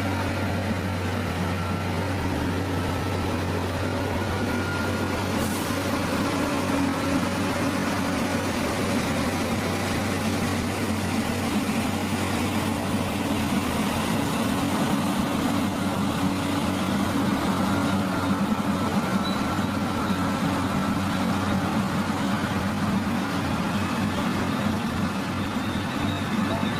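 Engine of heavy road-construction machinery running steadily at a constant speed, a low, even drone.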